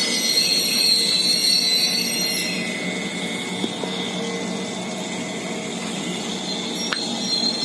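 Slow-moving passenger train of new stainless-steel carriages rolling past, its steel wheels squealing on the rails over a steady rumble. The squeal fades after about two to three seconds, leaving a quieter rolling sound.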